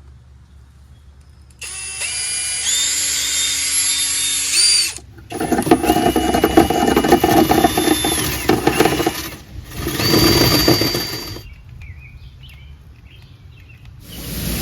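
Power tool spinning a wire wheel brush in bursts. It whines up to speed and runs steadily, then runs louder and rougher for about four seconds as the wire bristles scrub rust and debris from the teeth of a lawn tractor's steering sector gear, then gives one shorter burst. A loud steady rushing noise starts near the end.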